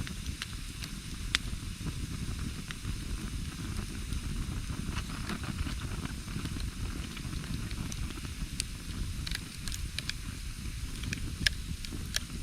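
Wood campfire crackling, with irregular sharp pops scattered throughout, two of them louder, over a steady low rumble.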